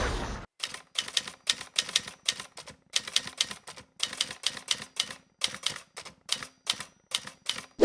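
Typewriter sound effect: keys clacking in an irregular run at about four strokes a second. It follows the fading tail of a boom in the first half second.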